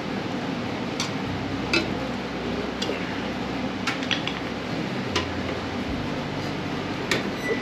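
Scattered light metallic clicks and clinks, about eight of them at uneven intervals, as tractor fuel-system parts and hand tools are handled, over a steady background whir.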